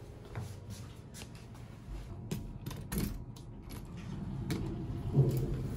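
Elevator car sounds: a steady low rumble with scattered clicks and knocks, and a louder knock about five seconds in.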